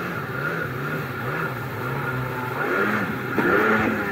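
Two-stroke engine of a 1998 Kawasaki SXi Pro stand-up jet ski running, its revs rising and falling again and again as the rider works the throttle.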